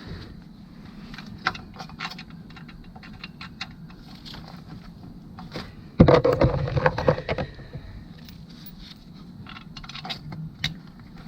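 Small metal clinks, taps and scrapes of bolts and hand tools being handled while the water pump's bolts are started on the engine, with a louder burst of clattering about six seconds in that lasts a second or so.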